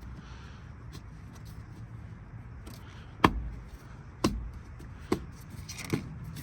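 Four sharp knocks, roughly a second apart, over a low steady rumble.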